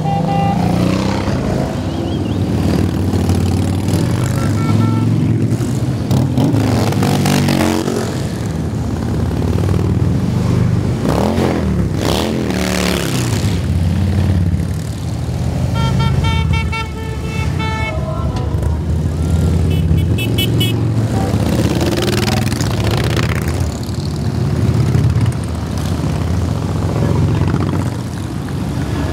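A long column of big touring motorcycles riding past one after another, their engines running in a steady rumble, with the pitch of single bikes dropping as they go by. A horn honks twice, a little past halfway and again a few seconds later.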